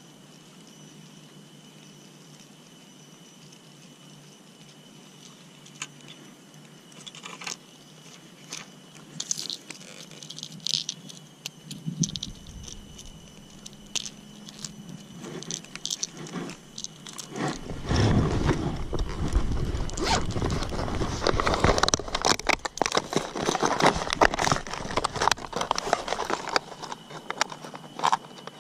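Small clicks and scrapes of fishing tackle being handled as a lure is clipped onto the line. From about two-thirds of the way in, loud rustling and crackling close to the microphone, with a low rumble.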